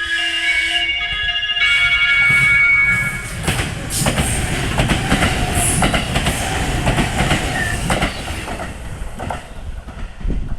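JR West 223 series 2500-subseries electric train sounds its horn for about three and a half seconds as it arrives, then runs past close by, its wheels clattering over the rail joints.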